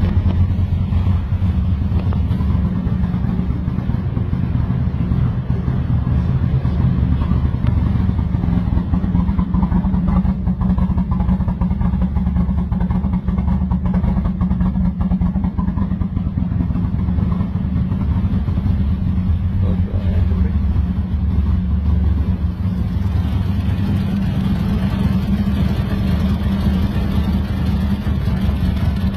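Built, turbocharged Toyota 2JZ-GE inline-six in a Lexus IS300 idling roughly, with a steady deep exhaust note and an uneven flutter, on its first start after the build.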